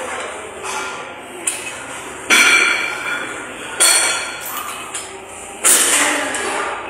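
Metal gym weights clanking: three sharp strikes, each ringing on for about a second.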